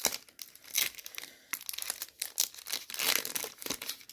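Foil Pokémon booster pack wrapper crinkling as it is handled and torn open, in a run of irregular crackles.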